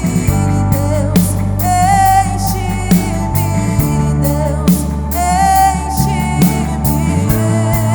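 Live worship band playing a slow song: a woman sings long held lines over drums, bass and sustained keyboard chords.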